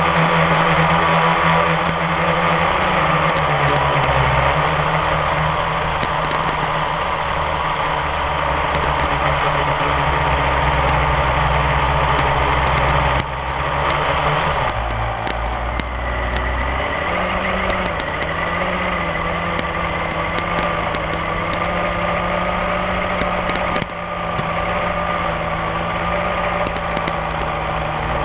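Electric motors and propellers of a radio-controlled aircraft carrying the camera, a steady whine made of several tones that shift in pitch a few times.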